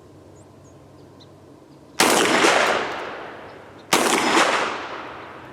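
Two shots from a Centurion BP12 12-gauge semi-automatic bullpup shotgun fed from a drum, about two seconds apart, each rolling off in a long echo. The action cycles and feeds the second round.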